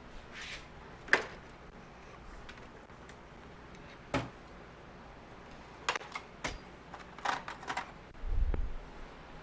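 Scattered clicks and knocks of hand tools and parts being handled during a motorcycle teardown: a sharp click about a second in, another around four seconds, a quick cluster of clicks between six and eight seconds, and a low thump near the end.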